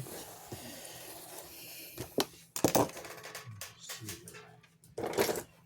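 Cardboard box and packaging being worked open with a small screwdriver: rustling, then a few sharp scrapes and knocks.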